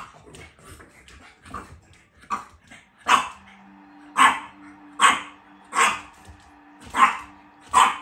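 French bulldog puppy barking in play at a cat: short, sharp barks, a few faint ones at first, then loud and evenly spaced at a little under one a second from about three seconds in.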